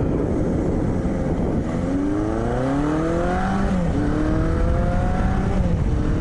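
1983 Suzuki GS1100E's air-cooled inline-four engine pulling away under acceleration. Its pitch rises steadily, then drops at an upshift about three and a half seconds in, rises again, and drops at a second upshift near the end.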